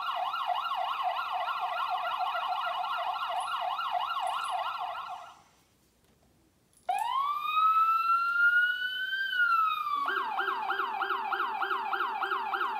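Electronic siren effects from the 2020 Hess toy ambulance's built-in speaker: a fast warbling siren that stops about five seconds in, a brief silence, then a single wail that rises, holds and begins to fall, then a second fast warbling siren pattern near the end.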